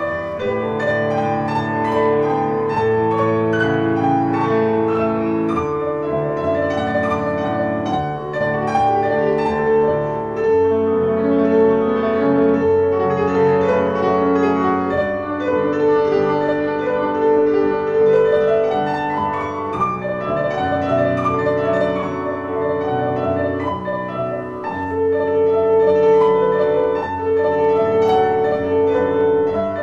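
Piano music playing continuously, a steady flow of held notes.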